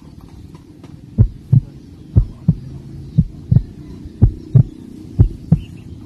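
Heartbeat sound effect: loud paired thumps, lub-dub, about one pair a second, starting about a second in over a steady low hum.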